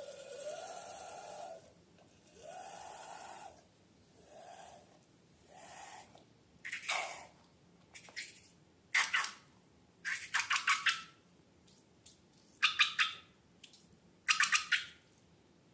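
Slime and balloons being handled: four hissing, squeaky bursts in the first six seconds, then a series of short wet crackling squishes.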